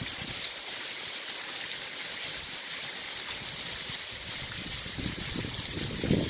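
Rain falling steadily on a paved driveway and street, an even hiss. Some lower, uneven sounds come in under it near the end.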